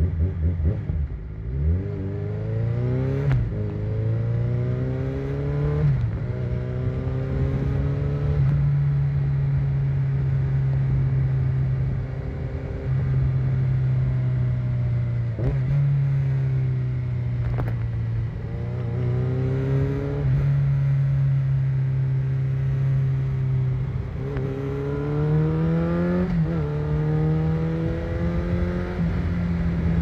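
Motorcycle engine accelerating up through the gears. The pitch climbs and drops back at each shift about 3, 6 and 8 seconds in, then holds steady while cruising. Around 18 to 26 seconds in it accelerates again through more shifts.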